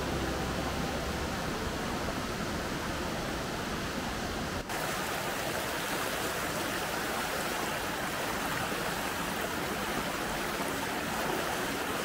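Shallow rocky creek rushing over a small cascade: a steady, even rush of water, broken by a brief dropout a little under five seconds in.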